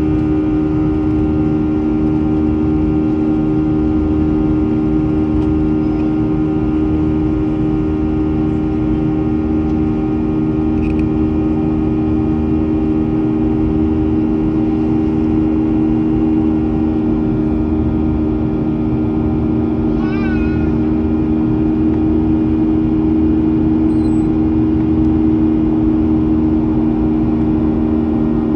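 Boeing 737-800's CFM56-7B jet engines running with a loud, steady drone, the pitch holding level throughout. Wind buffets the microphone, making the low end flutter.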